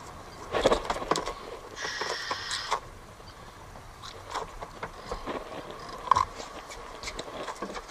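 Knocks, clicks and scrapes of a triggerfish being handled and cut with a knife on a plastic cutting board, with a brief high squeak about two seconds in.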